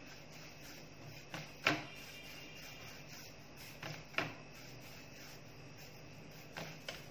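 Hands kneading chhena, the soft curdled-milk cheese for rasmalai, on a plate, with about five short sharp knocks, two of them in quick pairs, over a faint steady low hum.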